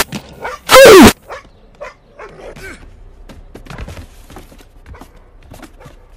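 A dog bark boosted until it distorts, with a falling pitch, heard twice: once at the very start and again about a second in. Quieter scattered knocks and rustles follow.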